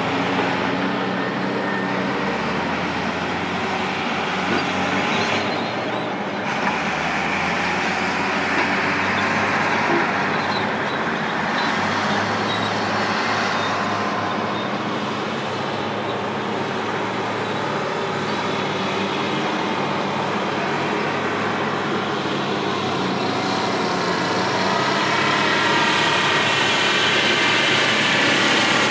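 Terex TS-14B scraper's twin Detroit Diesel 4-71 two-stroke diesel engines running steadily as the scraper works across the site, getting louder near the end as it comes close.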